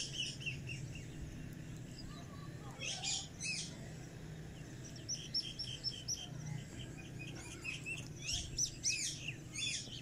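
Whiteface cockatiel chirping: a few short, high calls, then quick runs of chirps in the second half, over a low steady hum.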